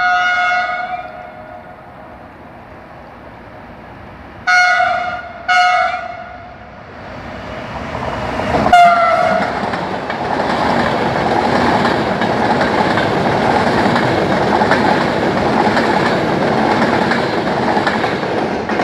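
Italian E403 electric locomotive hauling an Intercity train sounds its horn: one blast, then two short blasts about a second apart, and another short one about nine seconds in. The train then runs through with a loud, steady rumble of wheels on rail.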